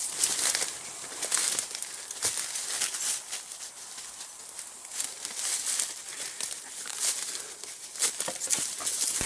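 Irregular rustling and crackling of brush and dry leaves as someone pushes on foot through forest undergrowth.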